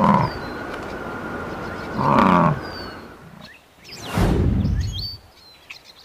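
American bison grunting: two rough, deep calls about two seconds apart, then a longer, deeper rumbling call about four seconds in.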